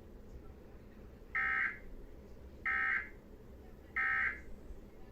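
Three short, identical bursts of EAS/SAME digital data tones, a little over a second apart: the end-of-message code that closes a NOAA Weather Radio warning broadcast.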